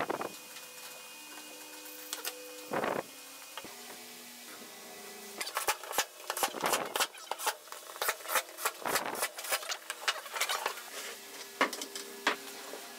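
Cordless drill driving screws through pine battens into pallet-wood boards, with clusters of sharp knocks and clicks as the wood is handled.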